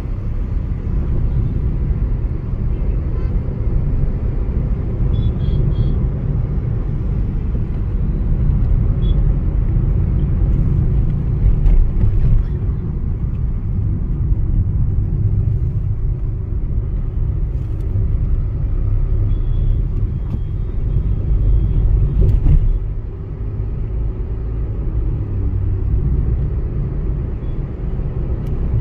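Steady low rumble of road and engine noise inside a car's cabin while driving in highway traffic, swelling briefly louder about twelve seconds in and again about twenty-two seconds in.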